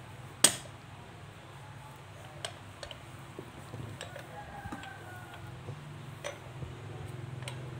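A stone mortar and pestle being moved and set down: one sharp knock about half a second in, then a few light clicks over a low steady hum.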